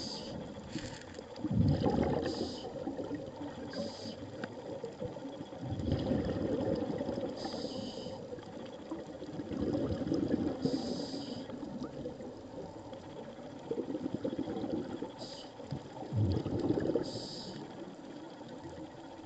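Scuba diver breathing underwater through a regulator: short hissing inhalations alternating with bubbly exhalations that surge every few seconds.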